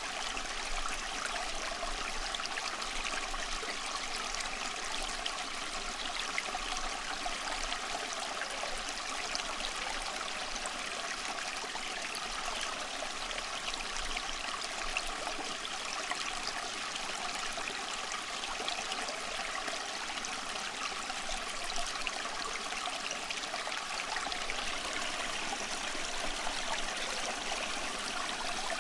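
Steady, unbroken rushing water like a running stream, even in level throughout, serving as the sound bed of a subliminal audio track.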